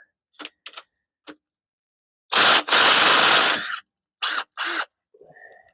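A power tool run in short bursts: a few small clicks, then one loud burst of over a second about two and a half seconds in and two brief bursts near the end, used to undo the engine mount bolts.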